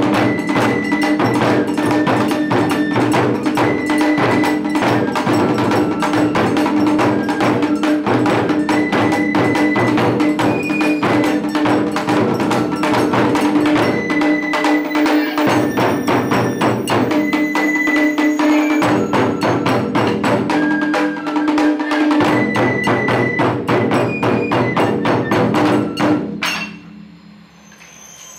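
Japanese taiko ensemble, large barrel drums and small shime-daiko, playing a fast, dense pattern of strikes. The drumming stops short near the end.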